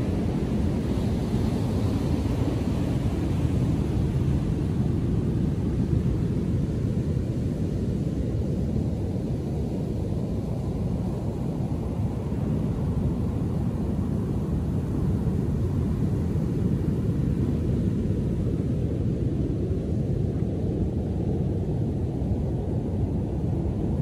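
Rough ocean surf after a storm: a steady, deep rumble of breaking waves, with the wash of foam up the sand swelling near the end.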